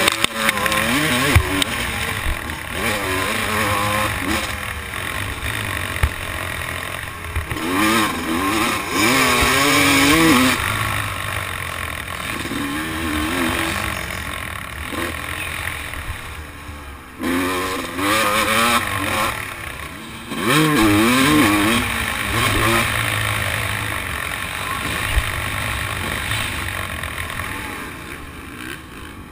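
A 250 cc motocross bike's engine revving up and down again and again as it is ridden around a dirt track, heard from the rider's helmet, with brief throttle-offs where the sound drops.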